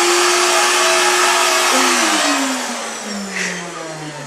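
Vacuum cleaner running with a steady whine, switched off about two seconds in, its motor winding down with a falling hum.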